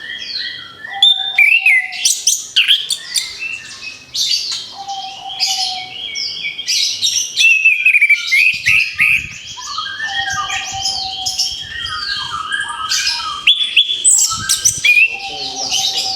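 Orange-headed thrush singing a rich, varied song of quick whistled phrases, trills and glides, with a lower held whistle note coming back about four times.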